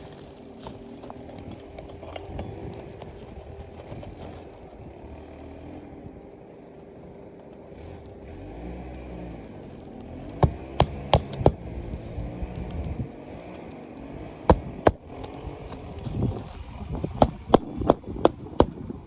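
Sharp knocks and taps in small clusters from work on an asphalt-shingle roof, starting about halfway through, over a steady low rumble of passing traffic.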